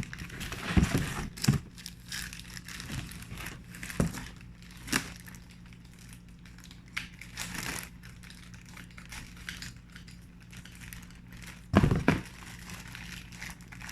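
Packaging crinkling and rustling in short bursts as products are unpacked and handled, with scattered clicks and a louder knock near the end.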